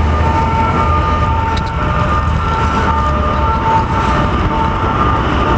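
Street traffic making a steady low rumble, with a two-tone emergency siren alternating between its two notes over it.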